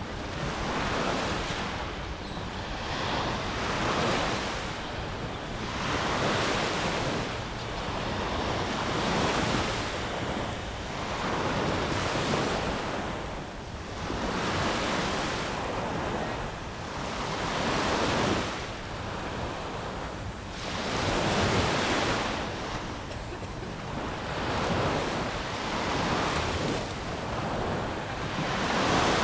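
Small ocean waves breaking and washing up on a sandy beach, the surf swelling and fading every two to three seconds.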